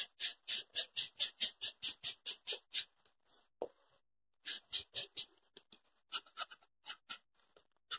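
Small paint-loaded sponge rubbed in quick short strokes against an EVA-foam petal, a dry scratchy rubbing. It goes at about four or five strokes a second for nearly three seconds, stops, then picks up with a few scattered strokes.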